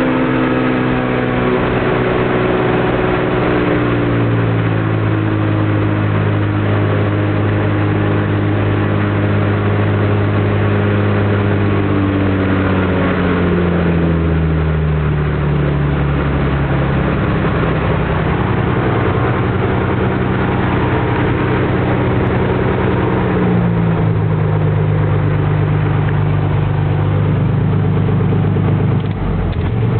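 Cessna 210's six-cylinder piston engine and propeller running during a ground run-up, with the engine speed brought down in several steps.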